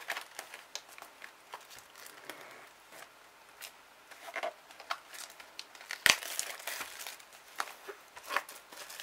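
Clear plastic shrink wrap being torn and peeled off a cardboard trading-card booster box, crinkling and crackling in quick irregular bursts. The crackling grows busier in the second half, with one sharp, louder crack about six seconds in.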